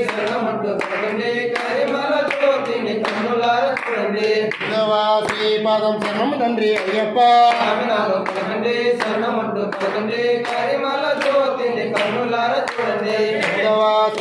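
Male voices singing an Ayyappa devotional bhajan together, over a steady beat of sharp claps or strokes at about two a second.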